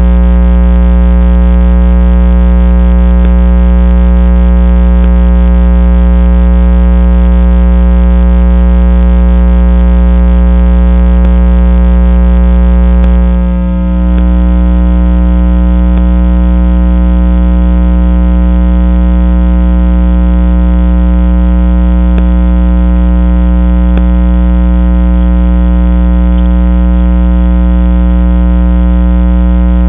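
Loud, steady electronic drone: a stack of unchanging tones over a strong low hum, dipping briefly about 13 seconds in.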